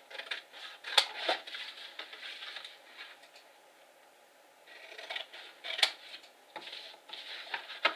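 Scissors snipping through cardstock, with the card rustling as it is handled. The sounds come in two bouts with a short lull between them, each with a sharp snip-like click.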